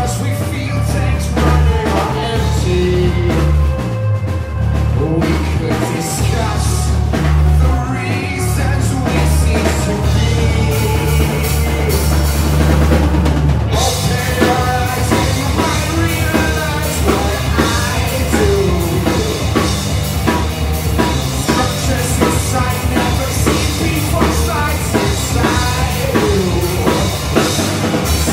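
Live rock band playing a heavy song: electric guitars and bass over a drum kit. About fourteen seconds in, the cymbals and full drums come in.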